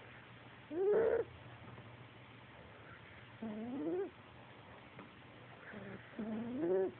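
A cat snoring in its sleep, with a pitched, rising call on each breath: three calls, each about half a second long and evenly spaced a little under three seconds apart.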